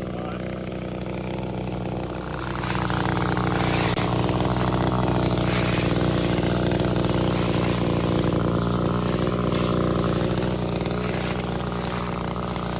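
Gas pole saw's small two-stroke engine running, revving up about two seconds in and holding high revs while it cuts.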